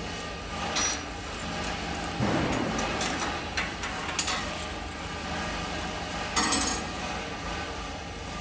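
Steel feeler gauge leaves clicking and rattling against each other as the set is fanned through, a few sharp metallic clinks over a steady workshop hum, the loudest about two-thirds of the way through.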